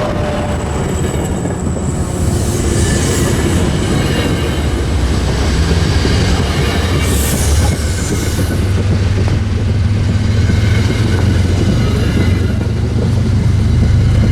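MBTA commuter rail train going by: a steady, heavy low rumble of wheels and engine, with brief high-pitched squeals about three seconds in and again around seven to eight seconds in.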